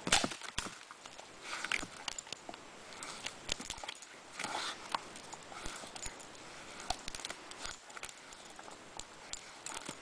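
German Shepherd dog chewing and pawing at a fallen branch on dry leaf litter: irregular cracks and clicks of wood with rustling of leaves, loudest right at the start.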